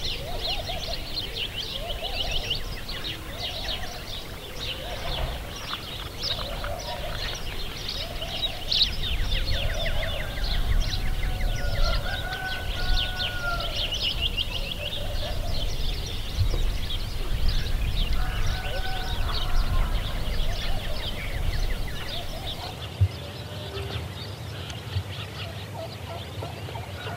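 Birdsong outdoors: a dense chatter of many small birds chirping high and fast, with lower repeated calls of domestic fowl. A low rumble underneath drops away about 23 seconds in.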